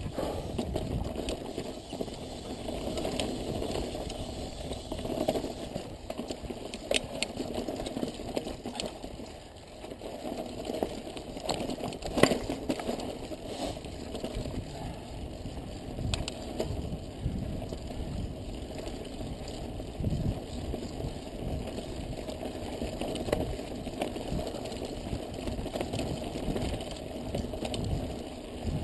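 Mountain bike rolling over loose rock and dirt: a steady rumble of tyres and rattling bike, with scattered clicks and knocks, the sharpest one about halfway through.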